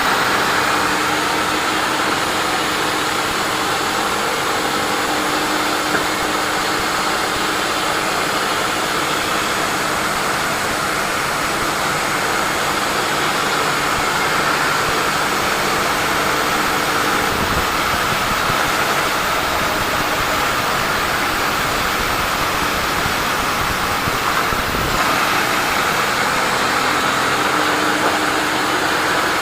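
Sawmill machinery running steadily: a loud, even mechanical noise with a faint steady hum underneath.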